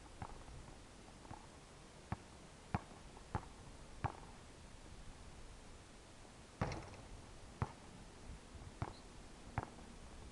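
Basketball bouncing on a hard court: four sharp thuds a little over half a second apart, then after a pause four more, spaced unevenly.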